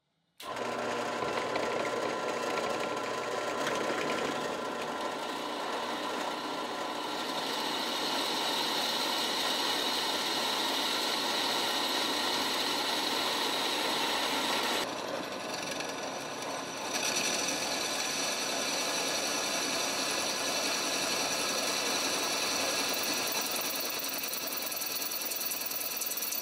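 Drill press running steadily as its bit drills through a forged 5160 steel knife blank, a steady mechanical whine with a short dip in level a little past halfway.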